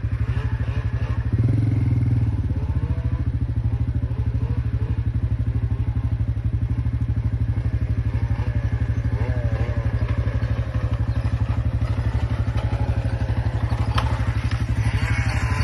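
Arctic Cat ZR600 snowmobile engine running steadily at a low, even pulse, with a brief louder surge about a second and a half in.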